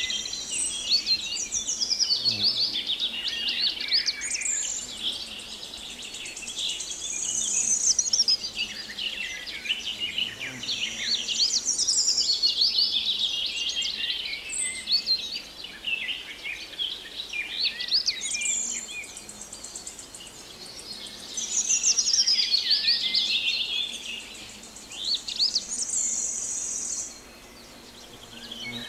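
Several birds singing at once, a busy chorus of overlapping chirps and whistles, with insects' high steady buzzing coming and going every several seconds.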